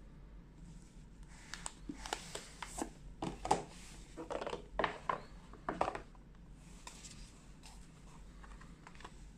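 Handling and opening a phone's cardboard retail box: a run of light clicks, taps and scraping rustles over a few seconds, then quieter handling.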